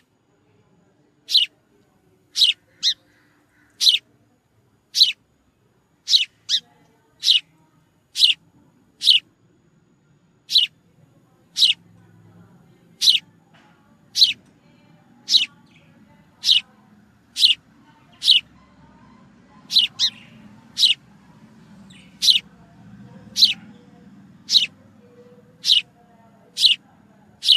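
A sparrow chirping: short, single high cheeps about once a second, now and then two in quick succession.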